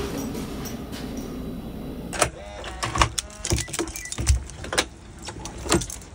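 Steady room hum, then from about two seconds in a run of sharp clicks and knocks as a front door's lock and lever handle are worked and the door is opened, with a short squeak among them.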